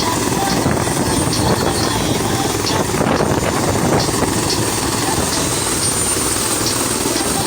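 Loud, steady drone of an aircraft's engines running.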